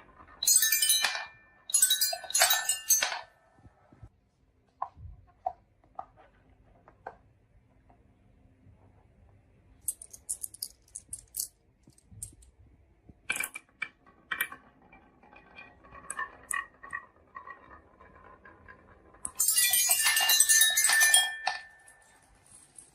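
Marbles clattering and clinking down a marble run. Dense rattling bursts of clicks come about half a second in, again around two to three seconds in, and once more near the end, with scattered single clicks and taps in between.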